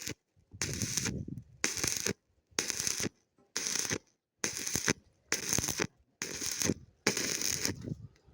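Rhythmic harsh scraping strokes, eight of them about one a second, each lasting about half a second.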